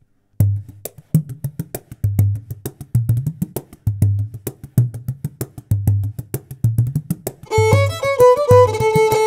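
Background music: a steady beat of low drum hits with quick ticking percussion between them, joined by a melody about seven and a half seconds in.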